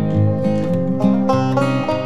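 Background music: a lively plucked-string tune over a steady bass beat.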